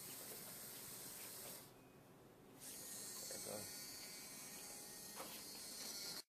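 Steady faint hiss of background noise, with a few faint short clicks and knocks. The hiss drops out for about a second early on, and the sound cuts off suddenly near the end.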